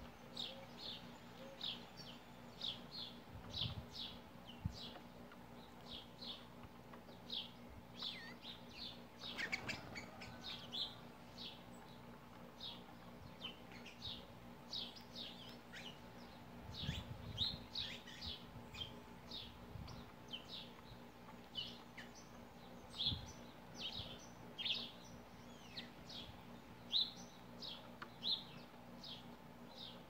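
A feeding flock of house sparrows chirping: short, high chirps, several a second, with no pause.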